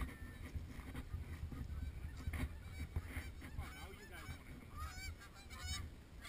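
Geese honking as they fly over, a string of short calls that come thicker in the second half, with wind rumbling on the microphone.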